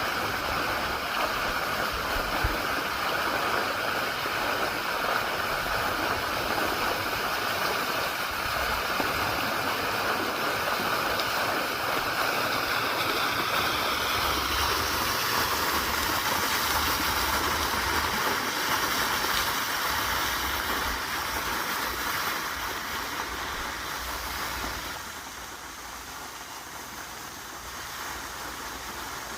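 Water flowing in a stream, a steady rushing sound that gets somewhat quieter about 25 seconds in.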